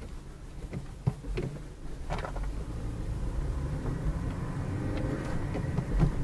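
Car driving, heard from inside the cabin: a steady low rumble of engine and road, with two brief knocks, one about a second in and one near the end.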